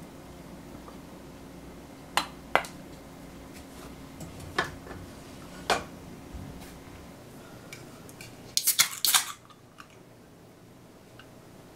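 A plastic rice paddle knocking four times against a metal bowl and the rice cooker's pot, sharp separate clicks. Near the end a can of beer is opened: a quick crackle of the tab with a short hiss, the loudest sound here.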